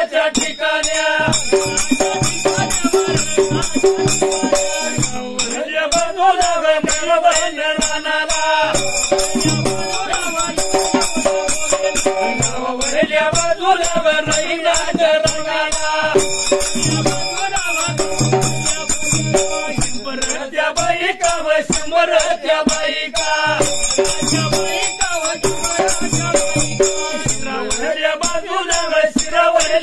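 Dhangari ovi folk singing: male voices chanting a melodic line over a steel-shelled dhol drum, with steady jingling from hand-held percussion.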